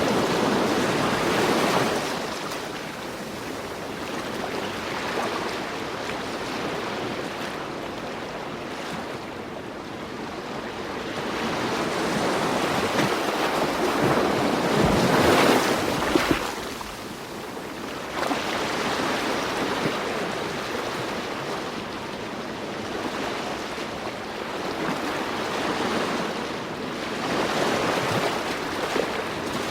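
Ocean waves breaking and washing in, rising and falling in slow surges every several seconds, the biggest swell about halfway through.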